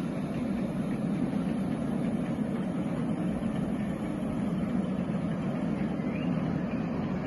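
Steady low rumble of a train rolling across a bridge over water, with no distinct beat or chuff.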